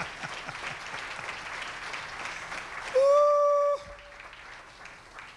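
Congregation applauding, the clapping thinning out. About three seconds in, a loud steady tone sounds for just under a second and then cuts off suddenly.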